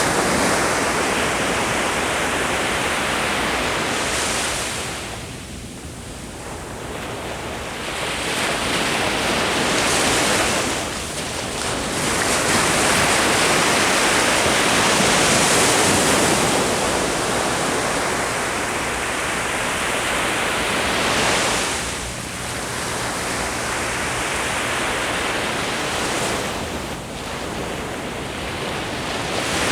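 Ocean waves breaking and washing up the shore, the surf swelling and easing every several seconds, with some wind on the microphone.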